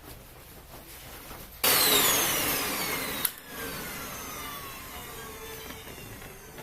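A loud electric motor whir starts suddenly about one and a half seconds in, with a whine that falls steadily in pitch. About a second and a half later it drops off sharply with a click, leaving a fainter falling whine that fades out.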